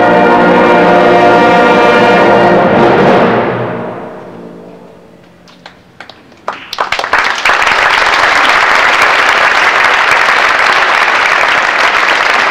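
A concert band's final chord, brass with timpani, held for about three seconds and then dying away. After a short near-pause a few scattered claps come in and quickly swell into steady audience applause.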